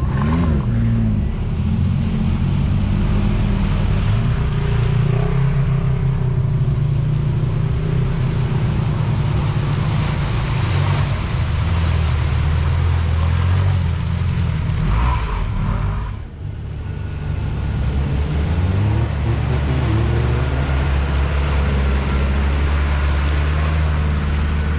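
Engines of 4x4 off-road vehicles labouring through mud, their pitch rising and falling as the drivers rev, with a short drop in level about two-thirds of the way through.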